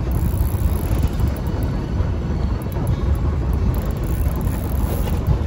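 Steady low rumble of wind buffeting the microphone on an open boat at sea, with the boat's engine running beneath it.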